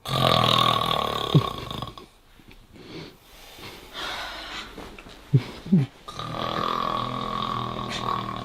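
A man snoring loudly: two long snores of about two seconds each, one at the start and one about six seconds in, with quieter sounds and a few short sharp ones between.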